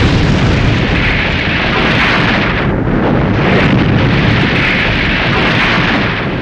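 Loud, continuous noise of a building explosion and fire, easing briefly about three seconds in.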